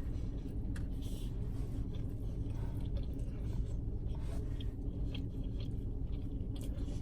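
A person chewing a mouthful of creamy fettuccine alfredo, with small wet mouth clicks, over a steady low hum.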